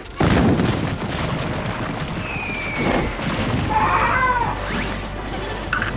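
Cartoon sound effects under music: a sudden loud boom about a quarter-second in that carries on as a steady rumble, with a falling whistle-like tone near the middle and a short warbling cry a little later.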